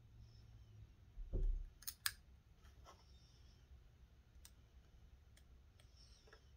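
Faint, scattered clicks and taps of hands cutting tape and handling the Xbox Series X's plastic casing, with a soft thump just over a second in and two sharp clicks about two seconds in.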